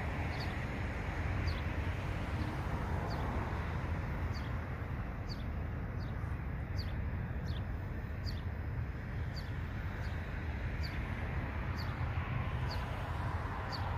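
A small bird repeating a short, thin, downslurred chirp about once a second, over a steady low outdoor rumble.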